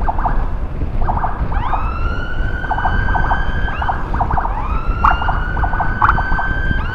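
Electronic emergency siren sounded in short bursts rather than left running: quick chattering blips, and twice a rising wail that climbs and holds for about two seconds, over engine and road rumble. Short siren bursts like these are used to clear a lane while carrying a heart or stroke patient, who should not be exposed to a loud continuous siren.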